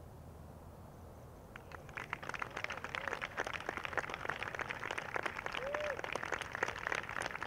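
Golf gallery clapping and cheering for a holed winning putt. The applause breaks out about two seconds in and keeps going, with a few short shouts over it.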